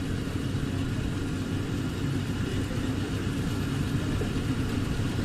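Rice combine harvester's engine running steadily, a constant low rumble.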